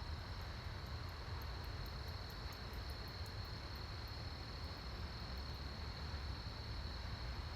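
Bat clicking: many short, faint, very high ticks at an irregular pace, thickest in the first half, over a steady high-pitched hum and a low rumble.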